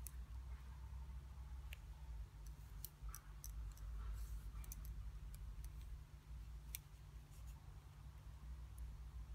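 Faint, irregular light clicks of bamboo double-pointed knitting needles tapping together as stitches are worked, over a low steady hum.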